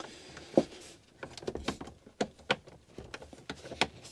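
Irregular small clicks and knocks of hands and a tool working on a caravan battery: the battery being turned and its pole clamp screwed tight onto the disconnect switch.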